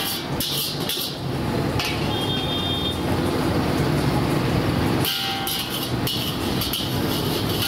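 Steady, loud background din of a busy street food stall: a continuous traffic-like engine rumble, with patches of hissing noise coming and going.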